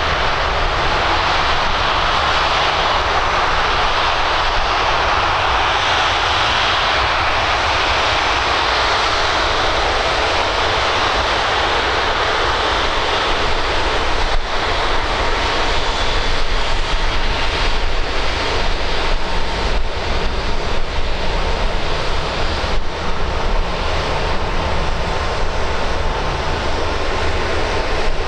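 Emirates Airbus A380-800's four jet engines running steadily at low power as the airliner taxis past: a continuous whine and rush of jet noise with a low rumble underneath.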